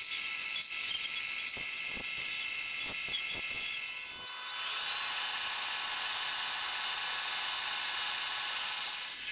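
Small benchtop metal lathe running with a steady high whine while it machines a metal wheel axle. About four seconds in the sound dips and changes as the tailstock drill bit starts centre-drilling the end of the spinning rod, adding a broader hiss.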